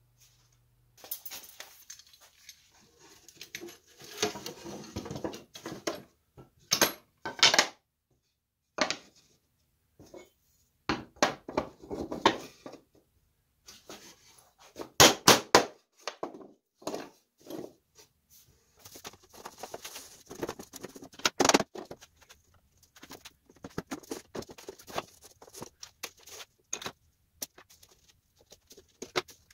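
Wooden drawer parts and panel stock handled on a workbench: irregular knocks, taps and scraping, with a few sharp louder knocks, the loudest a pair about halfway through. Near the end, small spring clamps are put on to hold the old drawer-bottom piece onto new panel stock as a template.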